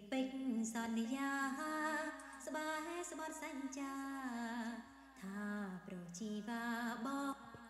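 A woman singing a slow melody solo, with no accompaniment heard: a raw, unprocessed home vocal recording played back at low volume, too quiet before any gain or clean-up, with a faint steady low hum underneath.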